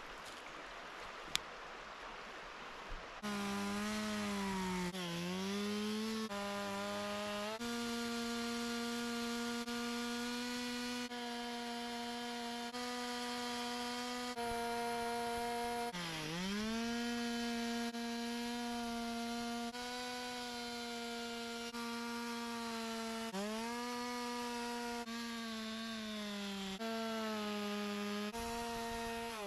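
Two-stroke chainsaw running at high revs while carving wood, starting about three seconds in. Its pitch sags several times as the chain bites into the wood and then climbs back, with abrupt jumps in pitch and level every second or two.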